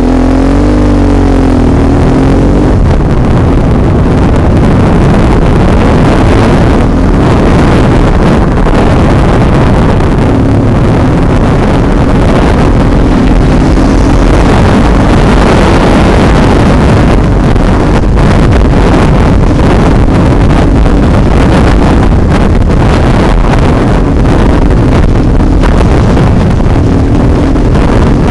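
BMW HP2's two-cylinder boxer engine running as the bike rides along a rough lane, its pitch rising and falling in the first few seconds. Heavy wind noise on the microphone runs over it throughout.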